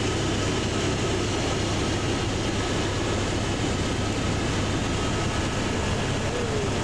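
Steady cabin noise of a Eurocopter AS350 single-engine helicopter in flight, its Turbomeca Arriel turboshaft and rotor running: a constant low drone with a thin steady whine over it, heard from inside the cabin.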